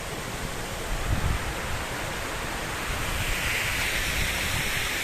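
Steady rush of flowing water, a continuous even roar.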